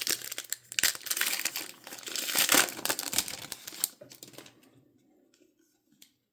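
Trading-card pack wrapper crinkling and tearing as it is ripped open. The rustling stops about four seconds in, leaving a few faint ticks.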